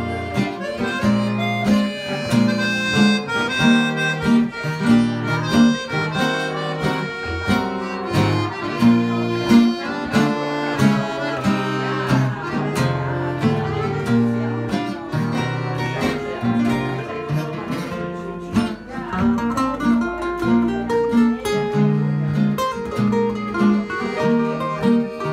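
Small acoustic jazz band playing live: violin, accordion, lead guitar and rhythm guitar together in an instrumental passage, over a steady strummed chordal beat.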